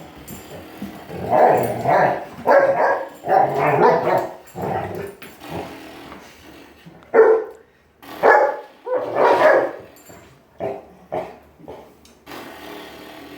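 A dog barking and growling: a string of short barks in quick runs, with pauses between them.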